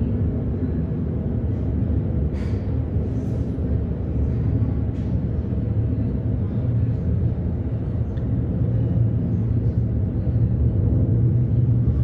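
Steady low rumble of jet engines, typical of the Blue Angels' F/A-18 Super Hornets, growing slightly louder near the end. A few brief faint sharp sounds come through about two and a half and five seconds in.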